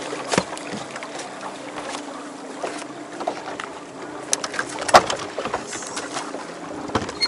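A bass boat sitting on choppy water, with a steady low hum and the wash of water against the hull. Scattered knocks from footsteps and gear on the deck, the sharpest about five seconds in.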